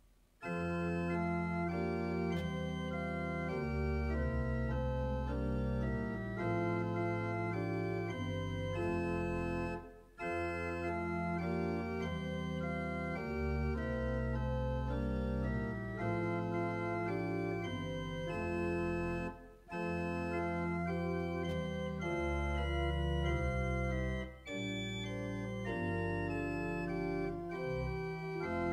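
Church pipe organ playing held chords, phrase by phrase, with short breaks between phrases about 10, 19 and 24 seconds in.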